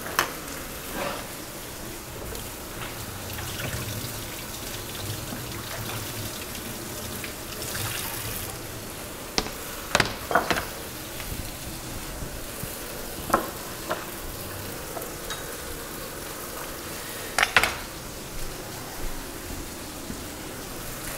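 Thick steaks sizzling steadily in a hot cast-iron skillet while they sear, with a few short clinks and knocks of kitchen utensils and dishes.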